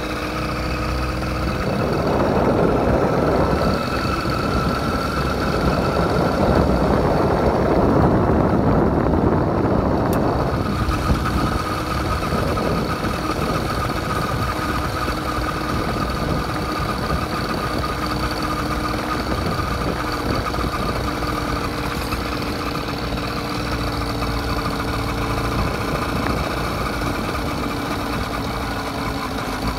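80cc motorized bicycle engine running steadily under way, its pitch nearly constant, with a rushing of wind and tyre noise on gravel that is louder for the first ten seconds or so.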